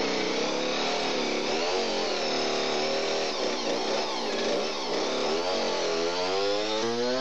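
Two-stroke chainsaw running hard, its pitch dipping and rising several times, with the deepest swings near the end.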